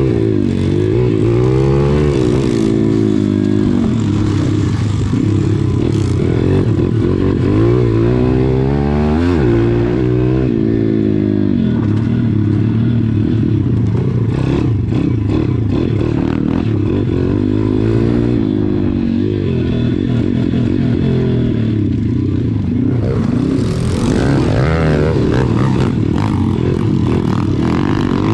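An SSR pit bike's small single-cylinder four-stroke engine, heard close up from on board, revving up and easing off again and again as the bike is ridden hard around a dirt track.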